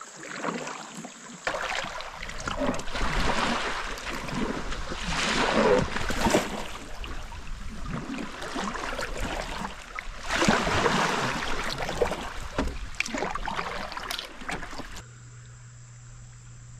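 Water splashing and rushing around an inflatable kayak paddled through a shallow river, coming in irregular surges. The splashing stops near the end, leaving a quieter steady hum.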